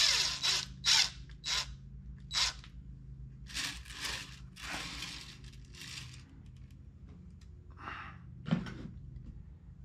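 DeWalt cordless drill driving a screw into the armature of a clay figure's hand in several quick bursts, its motor winding down at the start. This is followed by a few seconds of irregular scraping and knocking, with a couple of small knocks near the end.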